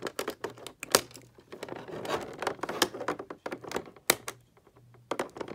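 Clear plastic packaging crinkling and rustling as it is handled, with sharp clicks of model kit cutters snipping the thin plastic ties that hold an action figure in its tray. The two loudest snips come about a second in and about four seconds in.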